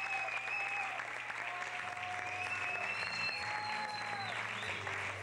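Audience applauding after a live rock band's set ends, with several long whistles rising over the clapping.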